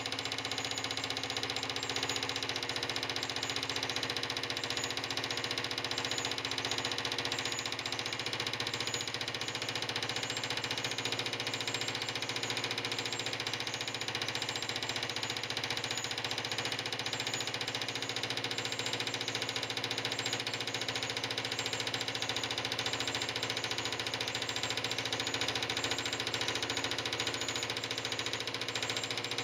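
Tabletop airplane whirl running steadily, its model planes spinning round the post, with an even mechanical hum that keeps one pitch.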